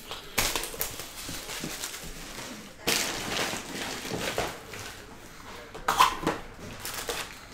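Plastic shrink wrap crinkling and tearing as it is stripped off a cardboard trading-card hobby box, then the cardboard box being handled and opened. It comes as a series of scratchy rustles, the loudest about half a second in, about three seconds in and about six seconds in.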